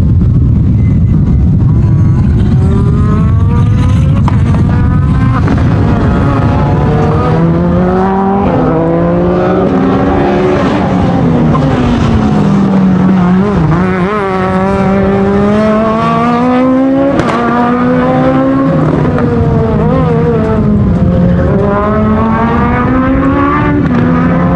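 Renault Clio Super1600 rally car's 1.6-litre four-cylinder engine being driven hard, revving up and down repeatedly: the pitch climbs under acceleration and drops sharply at gear changes and lifts.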